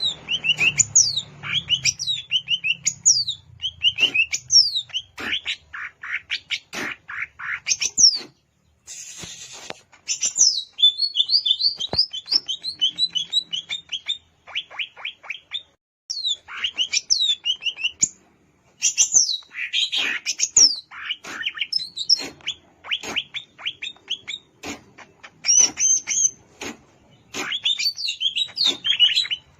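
Cucak ijo (green leafbird) singing: a fast, almost unbroken run of sharp, downward-sweeping whistles and chirps, with a few brief pauses.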